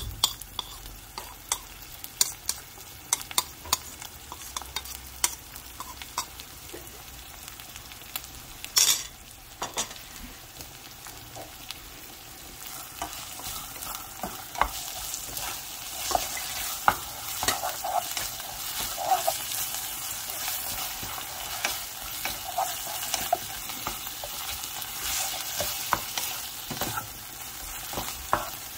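Food frying in a pan and being stirred, the utensil clicking against the pan again and again. The sizzling grows louder about halfway through.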